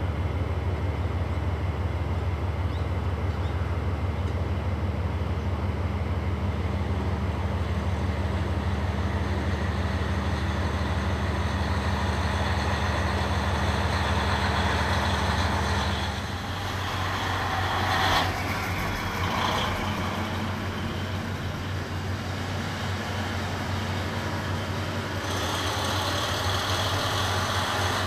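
Diesel train running: a steady low engine drone that drops away about 16 seconds in, followed by a rushing rail noise with a sharp clank or squeal about 18 seconds in, and a hiss coming in near the end.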